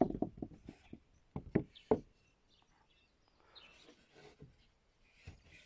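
Pieces of bog oak knocking against each other and the bench as they are shifted and fitted together: a quick run of sharp wooden knocks in the first two seconds, fainter taps and handling in the middle, and another knock near the end.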